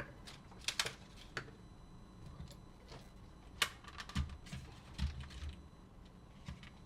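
Scattered light clicks and taps of a small screwdriver working the screws of a plastic portable cassette player's shell, with a few soft low knocks about four and five seconds in.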